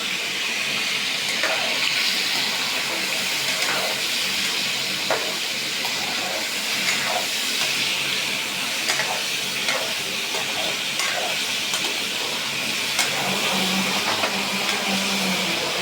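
Meat (gosht) frying in hot oil: a steady sizzle with scattered pops and crackles.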